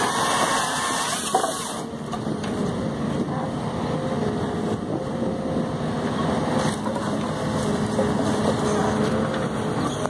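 Truck-mounted forestry crane's slasher-grapple saw cutting through a bundle of logs, stopping about two seconds in, with a knock just before. Then the truck engine and crane hydraulics keep running steadily as the grapple is swung.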